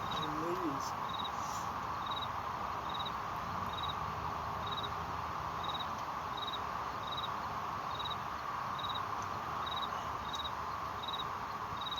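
A cricket chirping steadily, a short chirp a little more often than once a second, over a steady background hiss.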